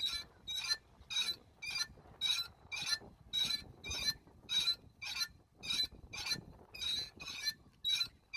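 Metal playground rocking seat squeaking at its pivot with each swing: evenly repeated high squeaks, about two a second.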